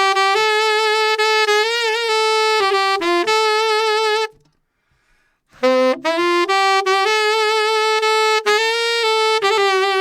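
Saxophone playing a slow melodic phrase, with vibrato on the held notes. It stops about four seconds in, then after a pause of a second or so starts again, scooping up into its first note.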